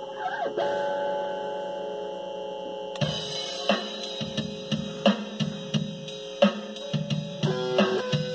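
An electric guitar chord rings out and sustains for about three seconds, then a backing drum track with kick, snare and cymbals comes in suddenly and the electric guitar plays along with it.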